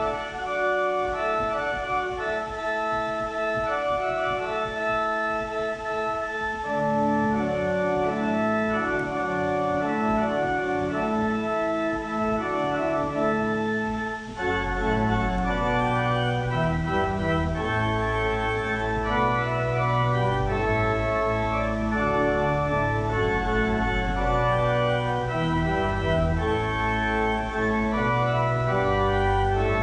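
Organ music of slow, held chords. About halfway through, a deep bass line comes in and the sound grows fuller.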